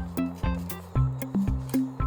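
Background music with a steady, fast drum beat over a bass line that changes note about a second in.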